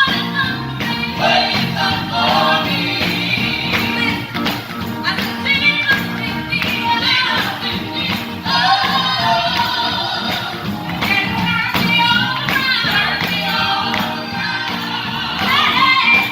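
Gospel choir singing with a live band, percussion keeping a steady beat.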